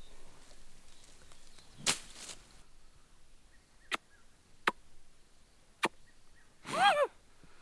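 A short swish, then three sharp clicks about a second apart, and near the end a short human vocal sound falling in pitch, like a grunt or sigh.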